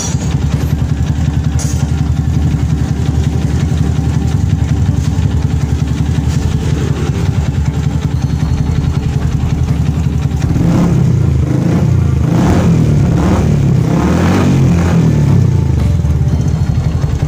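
Yamaha Vixion's single-cylinder four-stroke engine idling steadily through an aftermarket slip-on muffler. From about ten seconds in it is revved several times in quick succession, each rev rising and falling, then it settles back to idle near the end.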